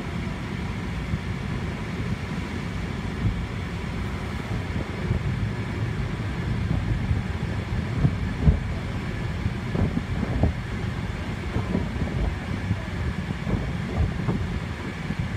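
Automatic car wash heard from inside the car: a steady low rumble of the wash machinery and spraying water, with soft thumps from about halfway in as hanging cloth strips slap across the windshield and body.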